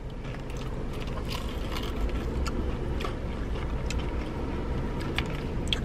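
Steady low rumble of a car idling, heard inside the cabin, with a few faint crunches of crispy fried chicken being chewed.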